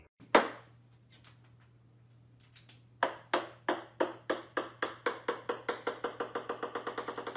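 A ping-pong ball striking a wooden floor with one sharp smack. After a pause it bounces again and again, the bounces coming ever faster and fainter until they run together into a quick rattle near the end.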